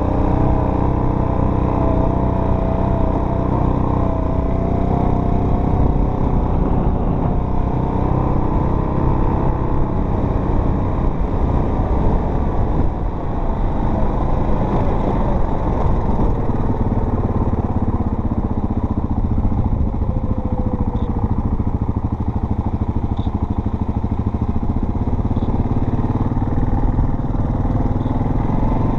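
Off-road vehicle engine running steadily under way, its engine speed rising and falling a little as it drives over a trail.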